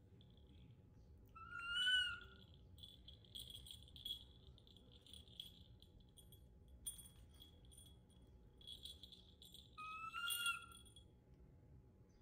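The small bell inside a plastic jingle ball tinkles softly as a baby macaque turns the ball in its hands. Two short, high, slightly rising coos from the monkey stand out, one about two seconds in and one about ten seconds in.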